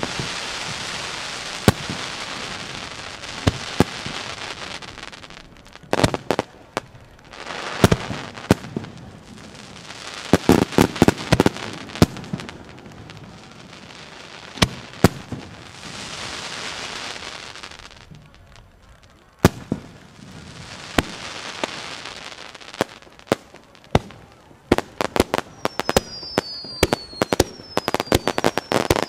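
Ikebun aerial firework shells bursting in sharp bangs, some single and some in quick rapid-fire clusters. Between the clusters come stretches of steady rushing hiss. A few short falling whistles sound near the end.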